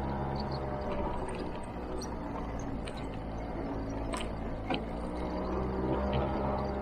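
Motor scooter engine running steadily while riding, with a few short knocks or rattles.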